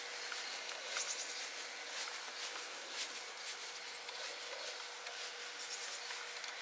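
Faint rubbing and scattered light clicks as carbon handlebars are worked into a bike stem clamp and its bolts are handled, with a faint steady hum underneath.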